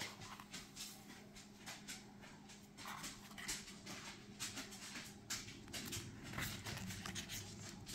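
Faint, intermittent rustling and light taps of the oracle deck's paper guidebook being handled and its pages leafed through.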